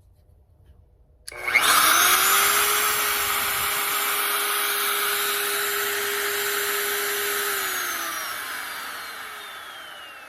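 Electric woodworking router switched on about a second in: the motor spins up within a fraction of a second to a loud, high whine, runs steadily for about six seconds, then is switched off and winds down with a falling pitch.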